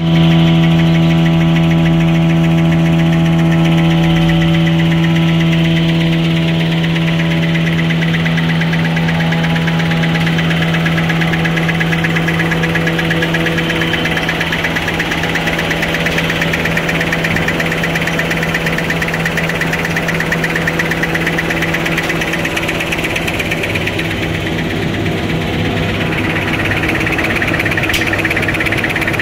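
Automatic four-lane facial tissue making machine running: a steady hum with a rapid, even mechanical clatter. The hum weakens about halfway through.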